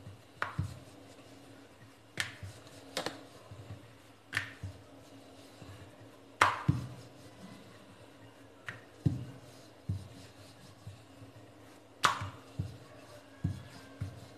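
Wooden rolling pin rolling out paratha dough on a marble rolling board: scattered sharp clicks and knocks of wood on stone, about seven, with softer low thumps in between, over a faint steady hum.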